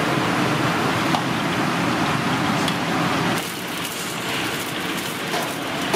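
Battered seafood pieces deep-frying in a wok of hot oil, a dense steady sizzle over the burner. A little over three seconds in it cuts to a quieter wok burner sound.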